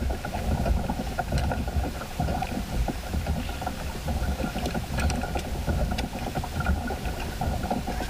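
A kayak on calm water, heard from a camera on its bow: a low, uneven rumble with scattered light knocks and clicks.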